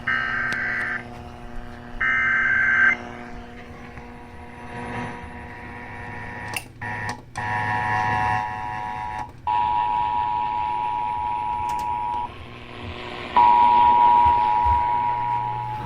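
Emergency Alert System test on a radio broadcast: the last two SAME header data bursts, harsh warbling screeches about a second each and a second apart, then after several seconds of radio hiss with a couple of brief dropouts, the two-tone EAS attention signal starts about seven seconds in. It cuts out briefly twice and comes back louder near the end, over a steady low hum.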